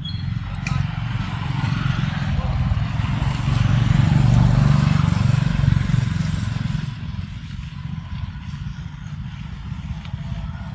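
A motor vehicle passing close by: it grows louder to a peak about four to six seconds in, then fades, over a steady low rumble.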